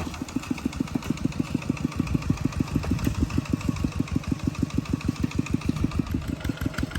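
Small engine running steadily, its exhaust beating evenly at about eight pulses a second, just after being pull-started.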